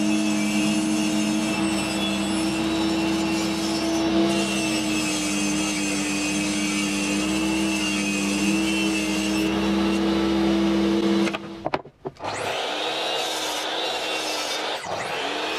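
Makita table saw running at speed and ripping a fibreboard strip: a steady motor whine under the rasp of the blade in the board. About twelve seconds in it cuts off abruptly, and after a brief gap a power saw runs again with a similar whine.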